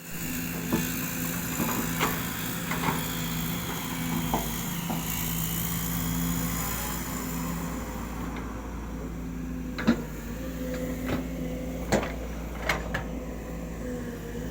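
Hydraulic excavator's diesel engine running steadily while digging, with a handful of sharp knocks, the loudest about ten and twelve seconds in.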